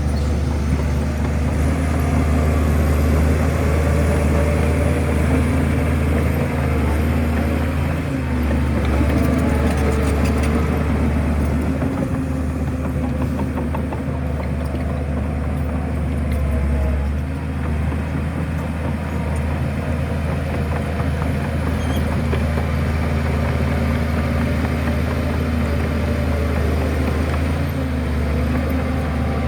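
Shantui bulldozer's diesel engine running steadily with a deep, even hum, with a stretch of metallic clatter about ten seconds in.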